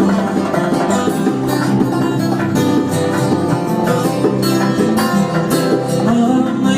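Background music: plucked acoustic guitar playing a steady rhythmic strum.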